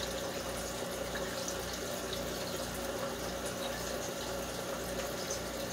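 Aquarium filter running: a steady trickle and splash of water with a faint low hum.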